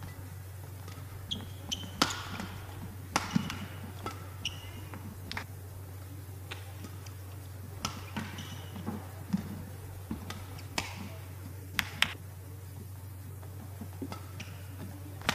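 Badminton rallies: sharp cracks of rackets striking the shuttlecock, a few in quick succession at a time, mixed with short squeaks of shoes on the court, over a steady low hum.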